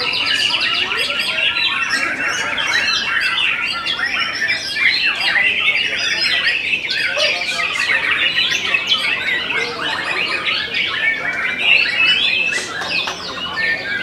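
White-rumped shamas (murai batu) singing over one another in a dense, unbroken chorus of loud, fast-changing phrases and chirps.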